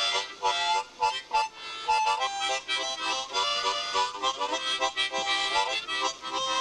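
Harmonica music: a tune of short notes and chords played in quick succession.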